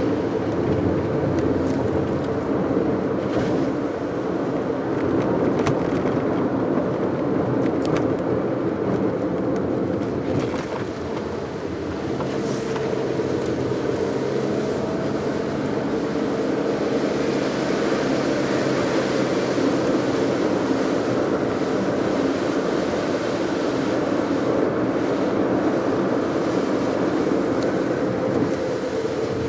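Steady road and tyre noise with a low engine hum, heard from inside a moving car.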